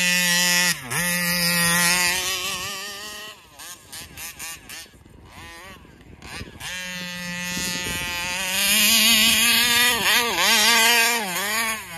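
Taylor 35cc reed-valve two-stroke engine in an RC car running at high revs, then sagging and surging unevenly even with the throttle held open. The revs dip briefly about a second in, fall away and weaken for a few seconds in the middle, then climb back. This flutter is what the owner blames on a faulty carburetor.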